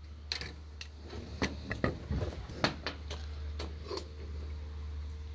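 Rochester Quadrajet four-barrel carburetor being picked up and handled: a run of sharp, irregular metal clicks and knocks that stops about four seconds in, over a steady low hum.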